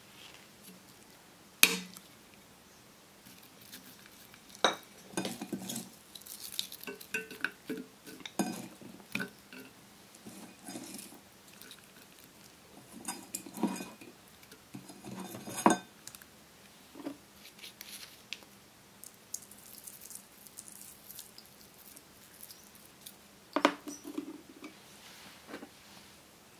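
Scattered clinks, knocks and short clatters of food and a utensil against a stainless steel pot as fish pieces, sliced onion and green onion are layered in, with quiet gaps between them. The sharpest clinks come about a second and a half in and again at about fifteen seconds.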